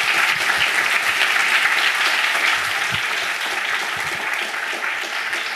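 Audience applauding: many people clapping together steadily, easing off slightly near the end.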